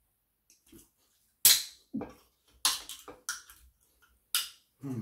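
Aluminium can of fizzy soft drink being handled and its ring-pull opened, a run of about five sharp cracks and hisses, each fading quickly. The loudest comes about a second and a half in.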